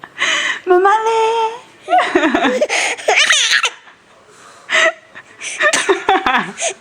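Fits of hearty laughter breaking into high, wavering squeals, in three bouts with a short pause before the last.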